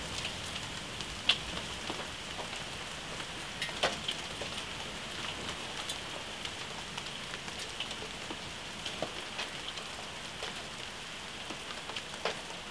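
Steady heavy downpour of rain and hail hissing on leaves and surfaces, with scattered sharp clicks of hailstones striking nearby, the loudest about a second in and again near four seconds.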